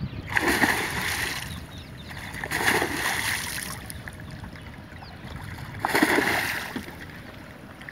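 Water splashing hard beside a small fishing boat, three times about two and a half seconds apart.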